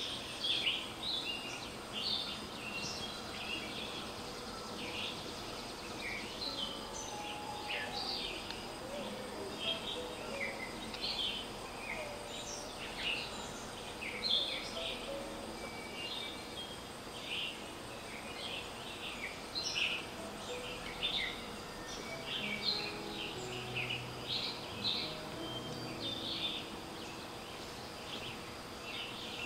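Woodland birds chirping and calling, many short notes a second scattered throughout, over a faint steady high drone of insects.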